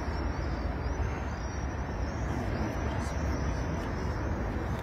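Steady low rumble of road traffic, with faint high chirps above it.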